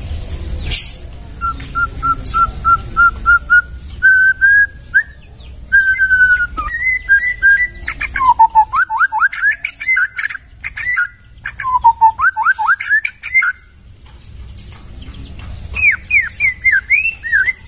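White-rumped shama (murai batu) singing in loud, clear whistled phrases. The song opens with a quick run of repeated even notes, then moves into varied phrases with repeated downward-sweeping whistles. It breaks off about 14 s in and ends with a phrase of quick rising-and-falling notes.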